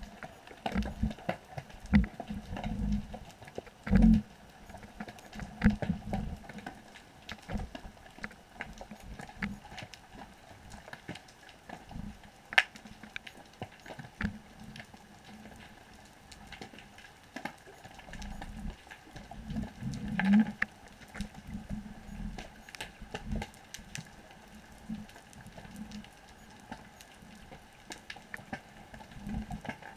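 Underwater sound picked up by a GoPro in its housing on the seabed: scattered sharp clicks and crackles over irregular low thumps and knocks, the loudest about four seconds in and again about twenty seconds in.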